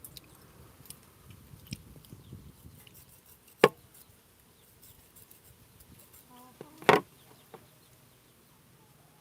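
Small clicks and ticks of rambutan being peeled and eaten, with two sharp clicks about three seconds apart, the second the loudest.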